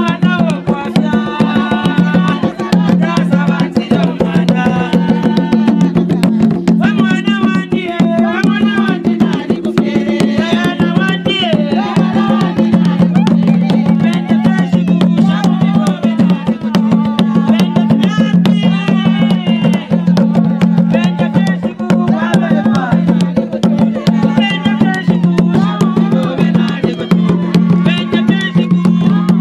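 Traditional Zambian drumming on large wooden hand drums: a fast, unbroken run of strokes, with voices singing over it.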